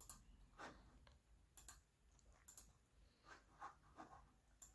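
Near silence: quiet room tone with a few faint, irregular clicks.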